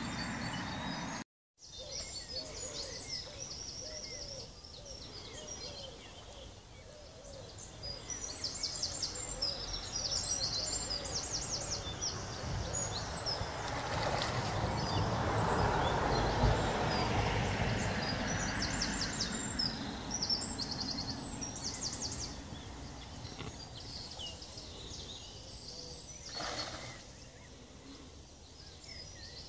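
Carp splashing and thrashing at the canal surface: a swell of churning water noise about halfway through that lasts a few seconds, with a shorter splash near the end. Birds sing throughout.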